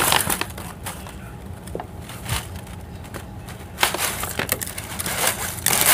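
Brown paper bag crinkling close to the microphone in scattered crackles, with louder bursts at the start, about four seconds in and near the end.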